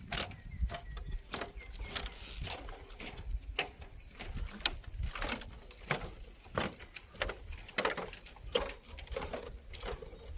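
Irregular sharp clicks and knocks, about one or two a second, over a low wind rumble on the microphone.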